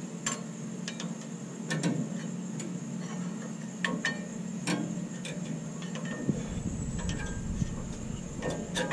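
Light metallic clicks and clinks, scattered and irregular, from steel brake pads, shims and caliper hardware being handled and fitted into the rear caliper bracket, over a steady low hum. A low rumble comes in about six seconds in.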